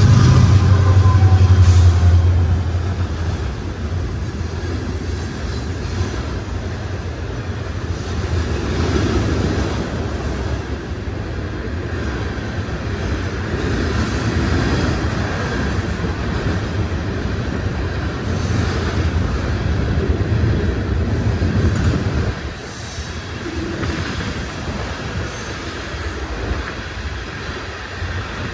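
Freight train passing: a diesel locomotive's engine drones for the first couple of seconds, then a long string of hopper and covered hopper cars rolls by with a steady wheel rumble and rail clatter, a little quieter from about 22 seconds in.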